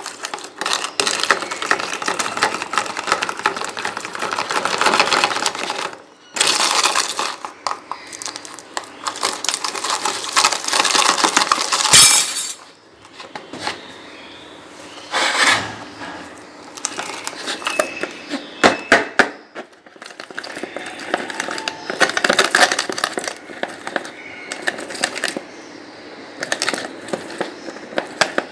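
Dry food being crushed and crumbled: dense crunching and crackling with sharp clicks, coming in spells with short pauses between.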